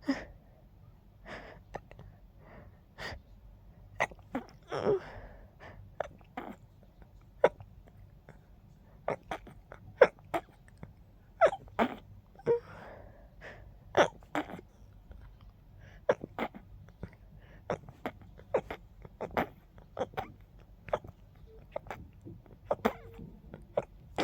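A long run of stifled sneezes held in with the fingers, short sharp bursts coming about one or two a second, with a couple of longer breathy sounds between them.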